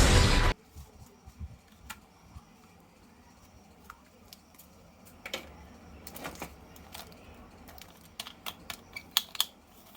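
Loud music breaks off about half a second in. Light plastic clicks and taps follow, coming faster near the end, from action figures or their packaging being handled.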